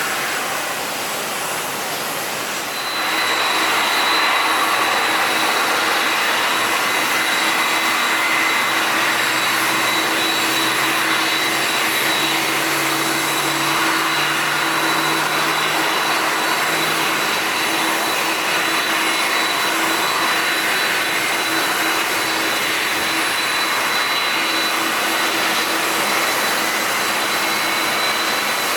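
Jet airliner engines running on the apron: a steady rush of noise with a high whine. The sound gets louder about three seconds in and holds.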